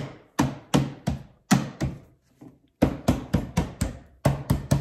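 Hand knocking and tapping on the top of a plastic bed tray. About three knocks a second, a short pause a little past halfway, then quicker knocks of about five a second.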